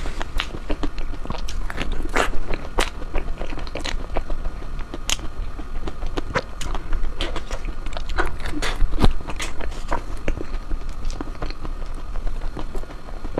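Close-up mouth sounds of someone eating ice cream: wet smacking and chewing with irregular sharp clicks and crackles, as of a crisp cone or coating being bitten.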